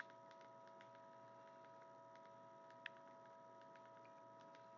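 Near silence: faint room tone with a steady, faint electrical whine and many faint ticks. A single soft click comes a little under three seconds in.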